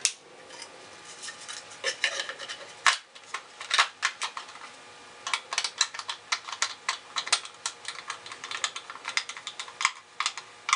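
Hard plastic clicks and clacks as the air filter parts and top cover of a chainsaw are fitted back into place, then a quick run of small clicks, several a second, while the cover screw is turned in with a screwdriver.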